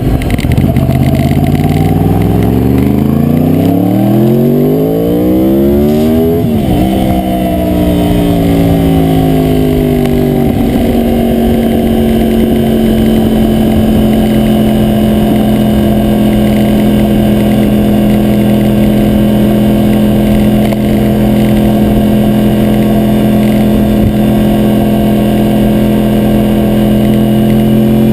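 2009 Yamaha YZF-R1's crossplane inline-four accelerating, the revs climbing steadily for about six seconds, then dropping sharply at an upshift and easing off before settling at a steady cruising pitch. Recorded on a bike-mounted GoPro Hero2 whose adhesive mount rattles from engine vibration.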